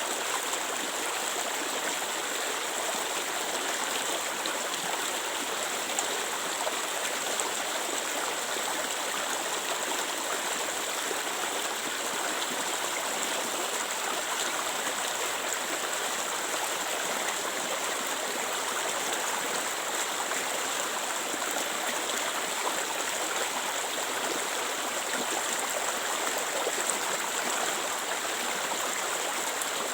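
Clear water flowing in a stream, a steady rushing and trickling without a break.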